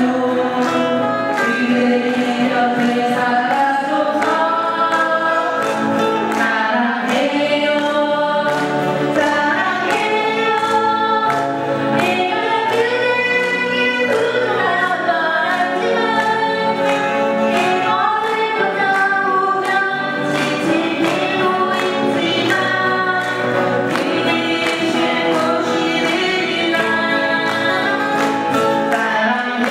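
Three women singing together in harmony while strumming acoustic guitars, heard through microphones.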